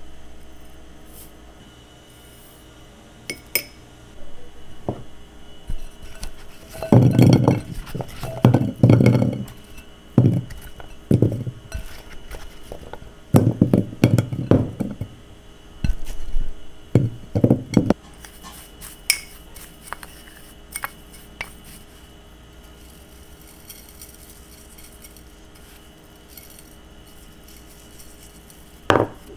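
Raw potato and other vegetable chunks being set down one by one into a glass baking dish. The result is a run of dull knocks and clinks on the glass, thickest and loudest through the middle, with lighter taps around them and one sharp knock near the end.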